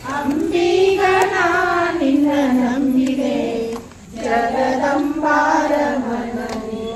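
A group of voices singing a Hindu devotional bhajan together, the melody gliding up and down, with a short break about four seconds in.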